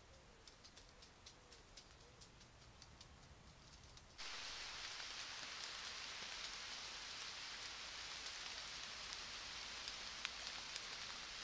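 Faint, irregular high ticking, then about four seconds in a sudden switch to a steady hiss like rain falling, with a few sharp drip-like clicks.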